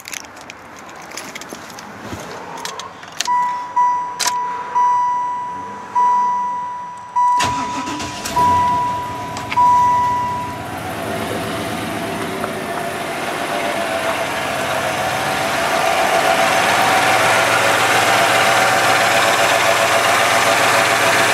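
Freshly rebuilt LT1 V8 in a 1996 Chevrolet Impala SS being started: it cranks briefly about seven seconds in, catches, and settles into a steady idle that grows louder and holds. Before and during the start, the car's dashboard warning chime beeps repeatedly at one pitch, stopping about ten seconds in.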